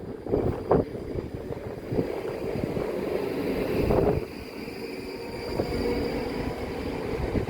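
A train on the main line, its running noise under wind buffeting the microphone in gusts. A faint steady high tone comes in during the second half as the train draws nearer.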